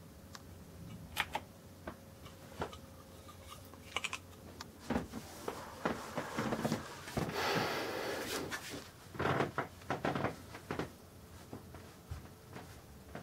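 Handling noise: scattered knocks and clicks, with a longer stretch of rustling and scraping about seven to eight and a half seconds in.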